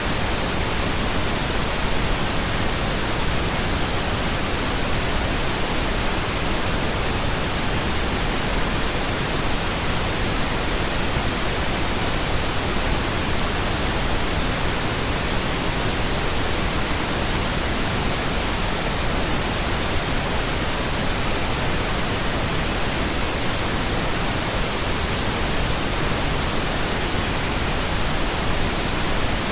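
Steady pink noise: an even, unchanging hiss spread across the whole range, with no tones or breaks.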